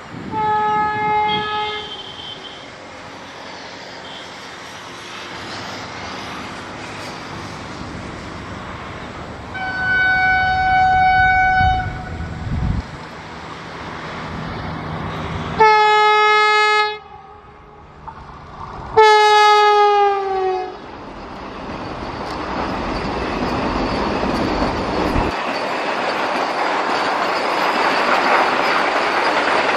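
Vande Bharat electric train sounding its horn four times on the approach, the last blast dropping in pitch as the train draws level. Then the rising rush and rattle of its coaches and wheels running past close by.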